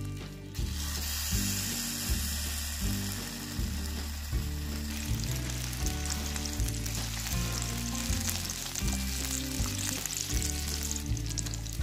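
Slices of smoked beef sizzling in hot oil in a nonstick frying pan, the sizzle setting in about half a second in and turning more crackly about halfway through. Background music with a steady bass line plays throughout.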